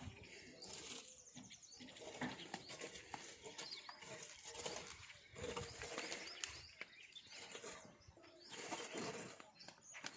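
Faint birds chirping, with scattered short calls and clicks over a low background hum.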